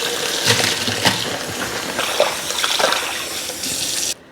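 Water running steadily from a kitchen tap, with a few light clicks and knocks, cutting off suddenly near the end.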